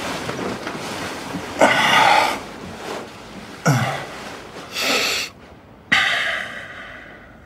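Four breathy exhales or sighs from a man settling into bed, the second with a low falling voice. Duvet rustling runs underneath.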